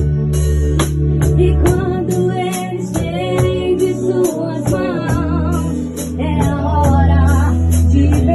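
Instrumental passage of a gospel song played on a Casio keyboard: a wavering melody over a steady bass line, with a high percussion tick on each beat.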